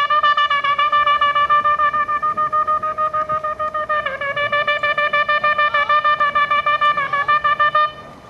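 Hunting horn blown in one long note, rapidly pulsed, held for about eight seconds and wavering briefly about halfway.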